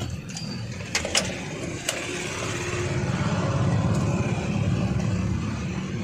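Honda Amaze car engine running just after being started with its repaired ignition lock, a steady low drone that swells in the middle and eases off near the end. A few sharp clicks sound in the first two seconds.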